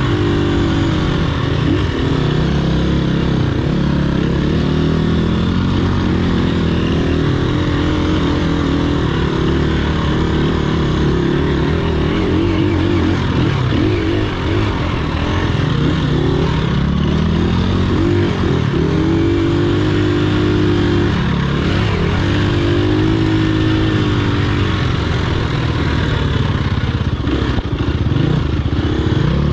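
Dirt bike engine running while being ridden along a trail, its pitch rising and falling again and again as the throttle opens and closes.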